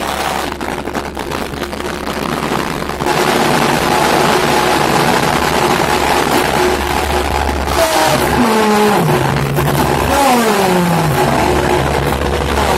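Harsh noise music: a loud, dense wall of distorted noise over a steady low drone, getting louder about three seconds in. Twice in the second half a whine sweeps down in pitch, like an engine winding down.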